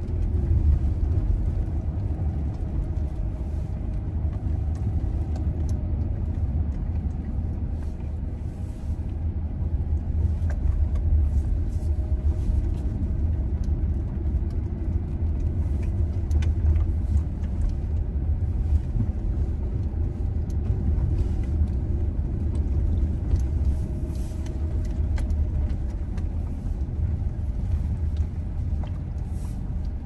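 Steady low rumble, with a faint steady hum above it and no distinct events.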